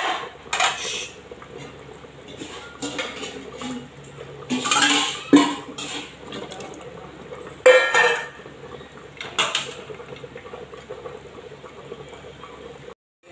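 Metal clanks and clinks of utensils and lid against an aluminium pressure cooker: several separate sharp knocks with a short ring, spread out, over a faint steady background.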